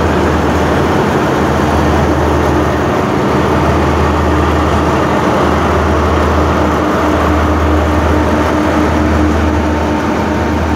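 Steady low drone of an Alsthom diesel-electric locomotive with an MTU engine, working under power as it pulls a passenger train out slowly, with the coaches rolling past.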